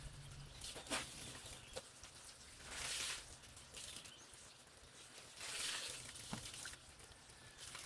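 Clothes being hand-washed in a concrete laundry sink: wet fabric rubbed and sloshed in water, in a few short splashy bursts, with a few light knocks.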